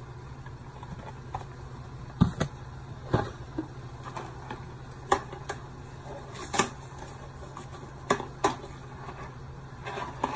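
Dry penne pasta poured from a cardboard box into a pot, with scattered sharp clicks and rattles about eight times over a steady low hum.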